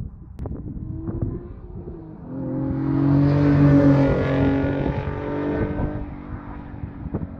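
Nissan 370Z Nismo's 3.7-litre V6 driving past through a non-resonated Fast Intentions TDX cat-back exhaust with the catalytic converters fitted. The exhaust note builds as the car approaches, is loudest about three to four seconds in, and fades as it drives away.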